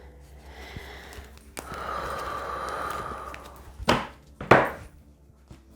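Tarot cards being shuffled by hand, a rustling slide of cards for a couple of seconds, then two sharp knocks as the deck or cards are set down on the table, the second the louder.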